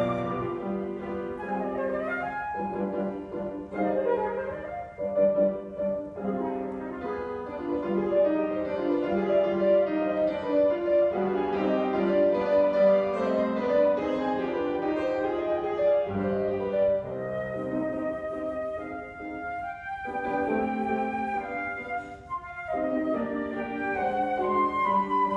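Flute with grand piano accompaniment playing a classical piece: a flute melody over piano chords.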